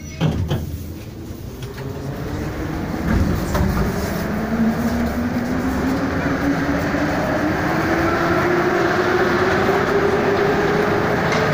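Moscow metro train running as it pulls away, its traction motors giving a whine that rises steadily in pitch as it accelerates, over the rumble of the train and station. A short loud knock comes just after the start.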